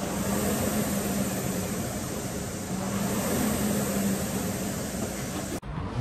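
Concept2 rowing machine's air flywheel whirring steadily with a low hum under rowing. It cuts out for an instant near the end, then starts again.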